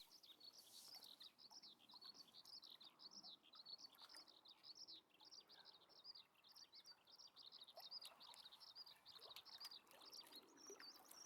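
Faint bird song: a fast, unbroken twittering warble of quick high notes.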